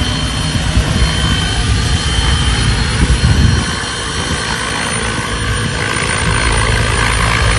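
A 12S electric scale model helicopter (a Vario Lama on T-Rex 700 mechanics) hovering. Its rotor blades chop in a dense low pulse that swells about three seconds in, over a steady high whine from its simulated turbine sound.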